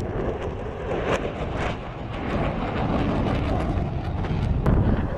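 Jet roar from a U.S. Navy F/A-18F Super Hornet's twin turbofan engines, getting louder toward the end, with wind on the microphone.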